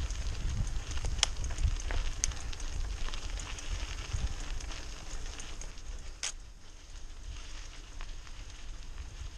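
Mountain bike rolling over a dry dirt track: the tyres crunch and crackle over gravel and fallen leaves, and the bike rattles, with a few sharp knocks. A low wind rumble on the microphone is strong for the first half and then eases.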